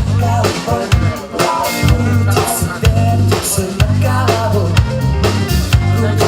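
Rock band playing an instrumental passage: drum kit keeping a steady beat under bass and electric guitar.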